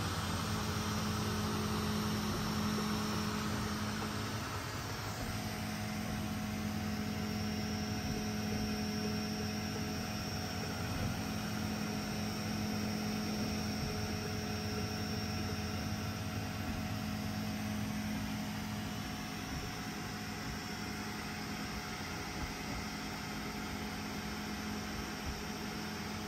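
Two FDM 3D printers, a Snapmaker 2.0 A350T and a Prusa Mini+, running side by side: a steady whir of cooling fans and a hum, with the whine of the stepper motors shifting in pitch as the print heads move.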